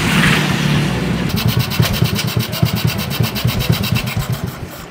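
Jialing motorcycle engine running with a quick, even putter of about a dozen beats a second, fading toward the end.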